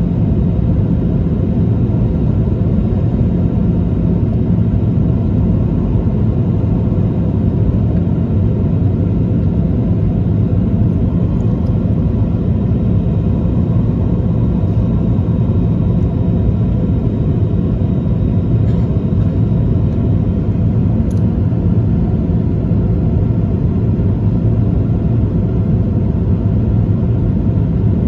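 Steady low rumble of a Boeing 737-800's CFM56 jet engines and the airflow over the fuselage, heard from inside the passenger cabin in flight.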